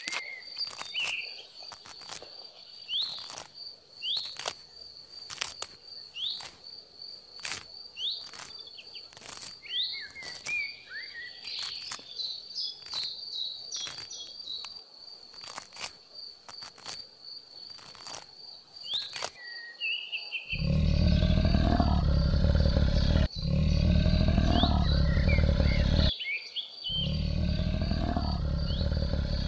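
Wild ambience of sharp irregular clicks, a steady high insect-like trill and short bird chirps. About two-thirds of the way through, a loud low rumble starts, the loudest sound here, and breaks off briefly twice.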